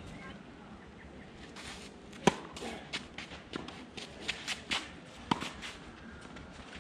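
Tennis ball struck by a racket twice, a sharp hit about two seconds in and another about five seconds in, with quick footsteps and shoe scuffs on the hard court between them.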